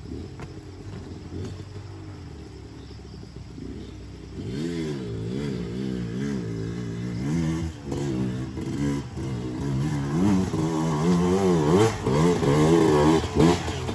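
Motorcycle engine running low, then from about four and a half seconds in revving up and down in repeated surges, getting louder toward the end, as it works under load on a steep rocky trail.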